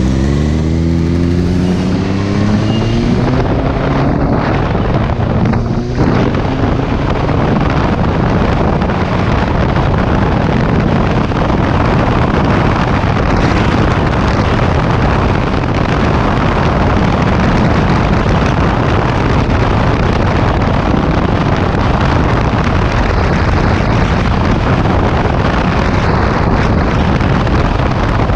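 2017 Kawasaki Z650's parallel-twin engine on its stock exhaust accelerating away, its pitch rising over the first few seconds. From there steady wind noise on the microphone mostly covers the engine as the bike rides on.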